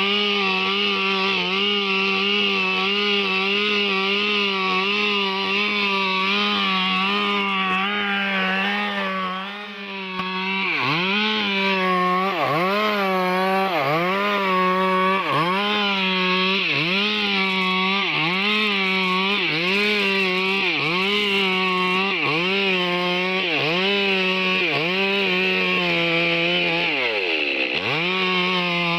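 Stihl MS 382 two-stroke chainsaw running at high revs. After about ten seconds its pitch dips and recovers about once a second as it works through the cut in wood, with a deeper drop near the end.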